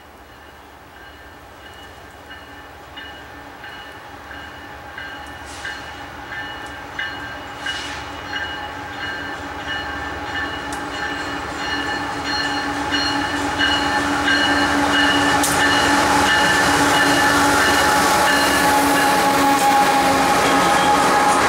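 BNSF double-stack freight train approaching, its diesel locomotives and wheels growing steadily louder until the locomotives pass close by near the end. Several steady tones sound throughout.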